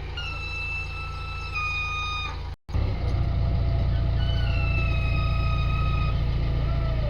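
Heavy diesel engine running steadily, with a long high-pitched tone sounding over it twice, each lasting about two seconds and stepping slightly lower in pitch. A sudden break about a third of the way through, after which the engine is louder.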